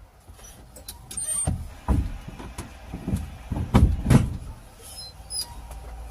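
A series of about six knocks and clunks inside a van's cab, with a few faint short electronic beeps, then a steady low hum near the end.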